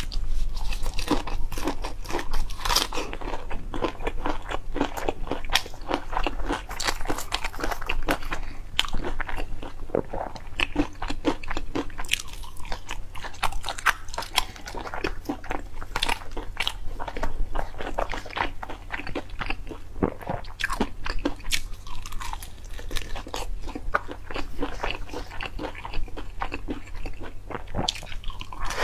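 Crispy fried chicken crunched and chewed close to a clip-on microphone: a dense, continuous run of sharp crackles with biting and chewing.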